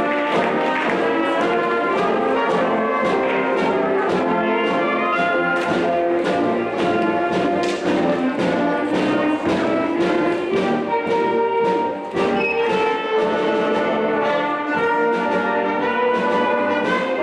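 Brass band music: trumpets, trombones and horns playing sustained melody and chords over a steady beat of percussion hits.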